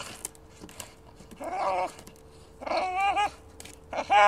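Bulldog making whining, warbling vocal noises in three bouts, each under a second, while playing with wood, with a few light clicks between them.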